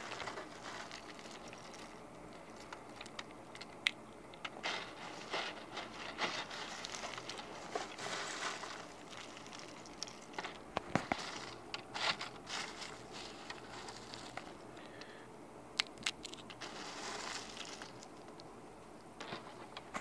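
Irregular rustling and scraping at a wire-mesh cage, with scattered sharp clicks and a few short louder scrabbles.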